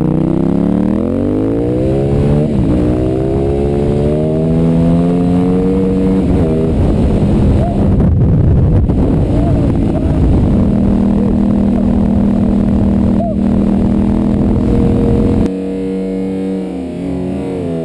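Aprilia RXV/SXV supermoto's V-twin engine heard onboard while riding: the revs climb in the first two seconds, then hold, and turn rough and uneven for a few seconds near the middle before settling back to a steady pitch. About fifteen seconds in, the engine drops back and distorted guitar music takes over.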